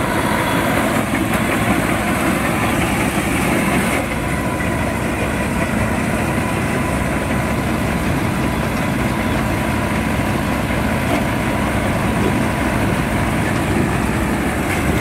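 Mahindra Arjun Novo 605 DI tractor's diesel engine running steadily under load while driving a Balkar B-525 combine harvester through rice, its threshing machinery adding a constant whine.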